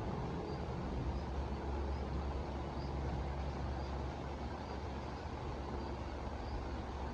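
Steady rain with a deep low rumble underneath. Faint high chirps repeat about once or twice a second.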